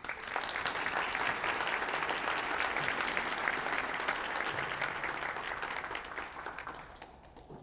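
Audience of diners applauding a speaker's welcome: steady clapping that starts at once, holds for about six seconds and then fades away near the end.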